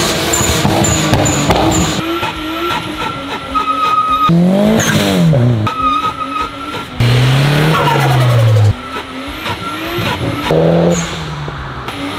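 Turbocharged performance cars revving hard in a string of short clips, the engine pitch sweeping up and down with each rev. Tyre squeal comes from a burnout.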